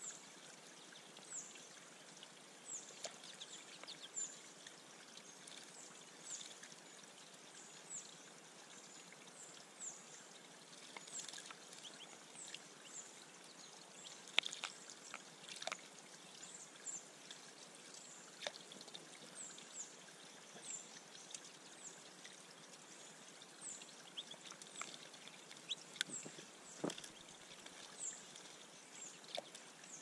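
Water trickling steadily over a small rock waterfall into a shallow pond. A bird gives short, high, down-slurred chirps about every second and a half, and bathing tufted titmice make a few brief splashes.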